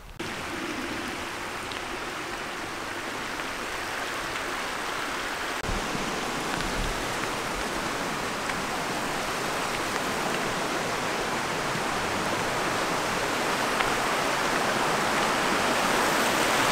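Rushing creek water, a steady hiss that grows gradually louder while approaching the footbridge over it.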